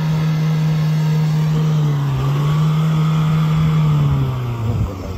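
Mahindra Thar's engine revving high and held there as the vehicle drives through deep mud. The pitch dips briefly about two seconds in and falls away near the end.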